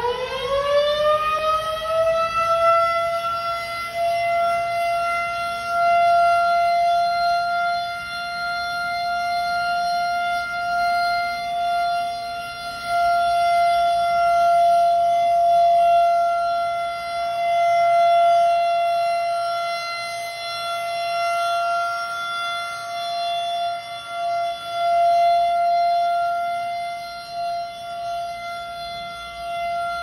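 Federal Signal 2001-130 rotating electromechanical warning siren sounding the steady Alert signal in a test: it finishes winding up in pitch over the first few seconds, then holds one steady tone that swells and fades as the horn rotates.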